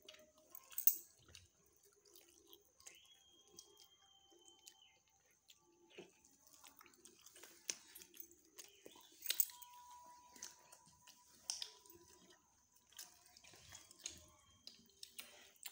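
Quiet, close-up eating sounds: chewing and small wet smacks and clicks, scattered and irregular, as chicken curry is eaten by hand from a plate.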